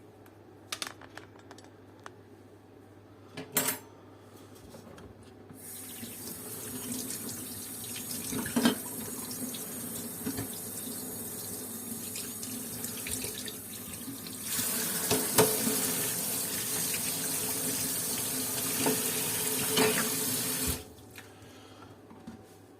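Water running from a tap into a sink, with a few clicks and a knock before it starts. The flow comes on partway in, gets stronger about midway, and is shut off abruptly near the end.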